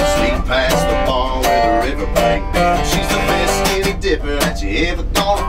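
Acoustic guitar and resonator guitar playing together in a country instrumental break, strummed and picked, with some notes bending in pitch.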